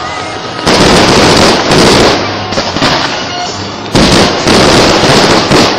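Fireworks display: dense, continuous bursts and crackling, with sudden loud jumps about two-thirds of a second in and again at about four seconds.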